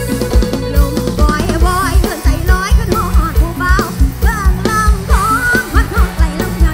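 Live Thai rot hae-style band music played loud: a heavy kick drum about three beats a second under bass, guitar and keyboard. A woman's singing voice with wavering, ornamented lines comes in about a second in.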